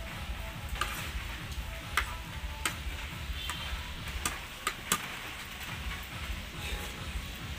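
A metal spoon clinking against a glass bowl and a plate: about seven short, sharp clinks in the first five seconds, one of them ringing briefly.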